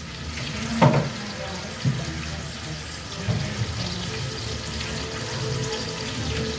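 Kitchenware knocking and clinking during cooking: a sharp knock about a second in, a lighter one a second later, and a few quick clinks past the middle, over a steady background hum and hiss.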